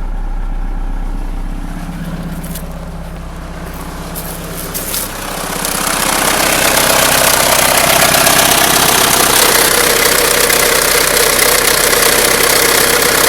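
1997 Mitsubishi Eclipse engine idling with a rapid knocking, which the owner places at the timing belt area rather than deep in the engine and thinks may be the lifters. The sound gets noticeably louder and fuller about six seconds in.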